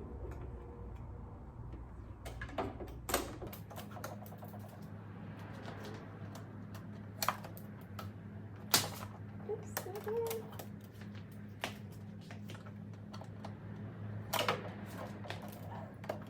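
Scattered clicks, taps and short crackles of packing tape being peeled off a new Brother PS200T sewing machine and its parts being handled, over a steady low hum.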